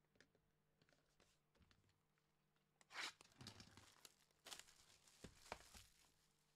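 Quiet tearing and crinkling of 2021 Donruss baseball card pack wrappers being opened: one short tear about three seconds in, then a run of several more tears and crinkles a second or so later.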